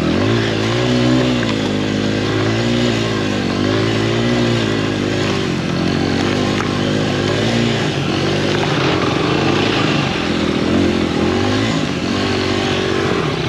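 Dirt bike engine revving up and down under throttle, its pitch rising and falling again and again, as the rear wheel spins on snow and ice climbing a slick hill.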